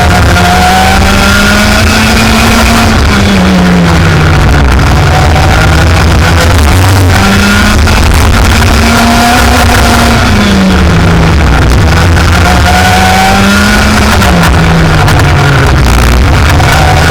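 Racing kart engine running hard on track. The engine note climbs slowly, then drops sharply three times as the kart slows for corners, over a loud, steady low rumble.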